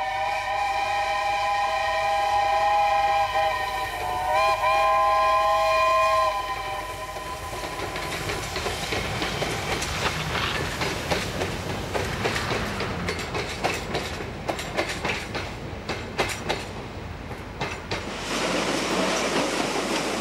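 Garratt articulated steam locomotive sounding its whistle: a held chord of several notes that steps up in pitch about four seconds in and stops after about six seconds. Then comes the rumble and wheel clatter of the train rolling past, with a louder rushing noise taking over near the end.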